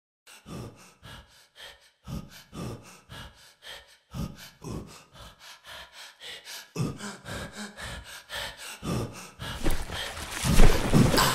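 A person's short, quick breaths and grunting gasps, about two a second, growing louder and more crowded near the end.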